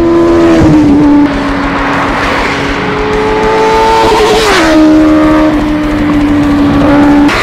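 Benelli 600i's inline-four engine, fitted with a slip-on exhaust, running at high revs as the bike passes at speed: a steady high note that drops in pitch as it goes by about a second in. The note rises again and drops a second time a little past the middle, then cuts off abruptly near the end.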